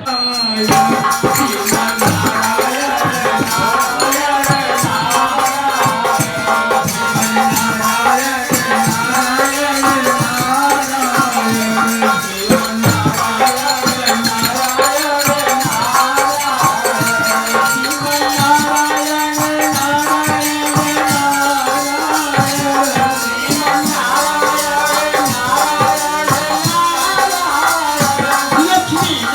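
Hindu kirtan: devotional chanting sung to music, with jingling hand percussion keeping a fast, steady rhythm.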